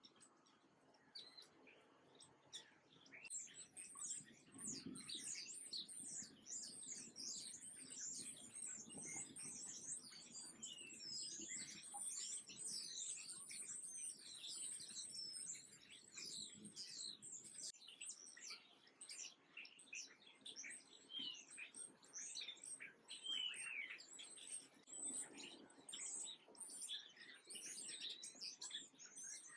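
A flock of small songbirds chirping, many short, high calls overlapping in a dense, continuous chatter that builds up a few seconds in.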